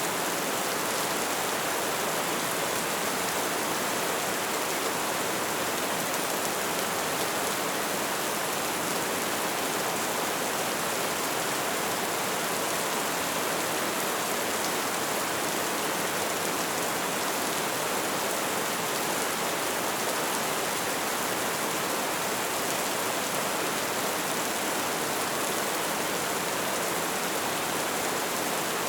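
Steady rain falling: a dense, even hiss that does not change in strength.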